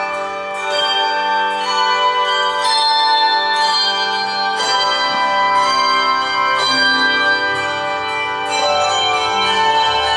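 Handbell choir playing a hymn arrangement: bells struck in chords about every second, each set ringing on and overlapping the next.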